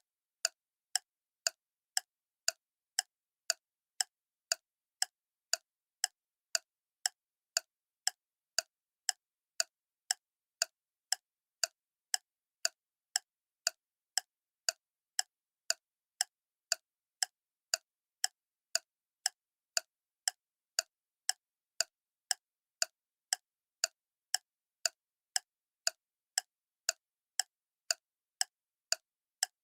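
Clock ticking steadily, about two sharp ticks a second, with silence between ticks.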